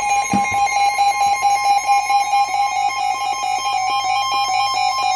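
NOAA Weather Radio warning alarm tone: a loud, steady, single high tone announcing a severe thunderstorm warning. A second, harsher electronic alarm pulses rapidly over it, typical of a weather-radio receiver's own alert.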